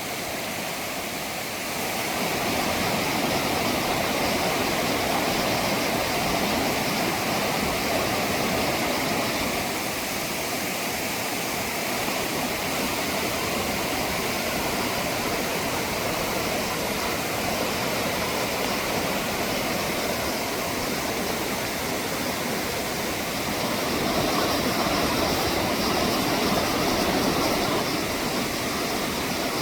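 Rushing water of a mountain valley stream, a steady rush that gets louder about two seconds in and again a few seconds before the end.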